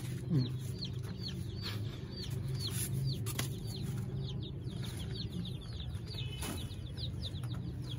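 A boxful of baby chicks peeping nonstop: short, high calls that each fall in pitch, several a second.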